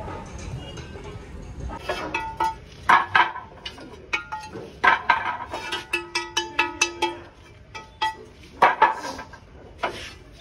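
Fired terracotta clay tiles struck with an iron rod, giving sharp ringing clinks in irregular bursts from about two seconds in, with a quick run of taps in the middle. The ring of each tile is used to judge its soundness and grade it.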